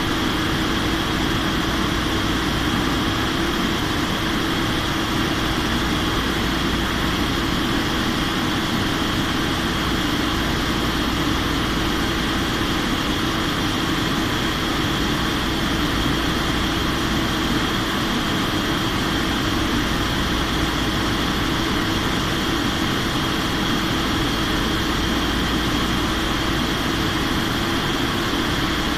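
Steady drone of an airliner's engines and rushing air, heard from inside the aircraft during its descent, with a steady hum and a fainter high whine over it.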